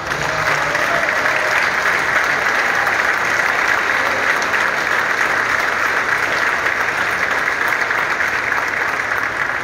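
Audience applauding, a steady, even clapping from many hands that holds its level throughout.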